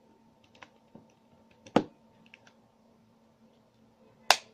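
Plastic clicks and knocks from handling the Kemei KM-680A grooming kit's shaver and its attachments: a few light ticks, then two sharper clicks about two and a half seconds apart, the second near the end.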